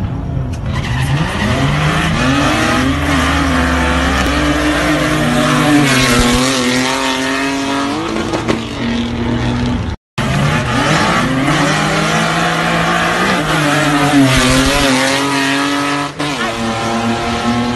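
Two nitrous-fed 3.5-litre street-race cars accelerating hard, engines revving up and holding high. The sound drops out for a moment about ten seconds in, then the climbing engine sound is heard again.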